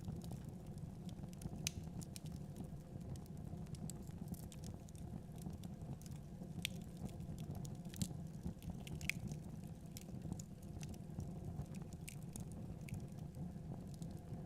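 Wood fire in a fireplace crackling: many irregular sharp pops and snaps over a steady low rumble of the burning logs.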